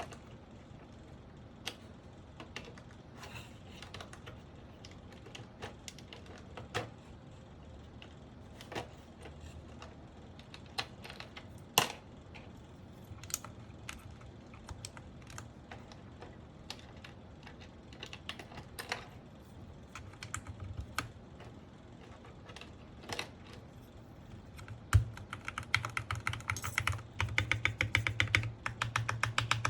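Mechanical keyboard switches (Gateron Pro Milky Yellow) being clicked: scattered single presses and taps, then from about 25 seconds in a rapid run of repeated presses on one key. This is a key being spammed to free a stiff, sticking switch stem so its travel returns to normal.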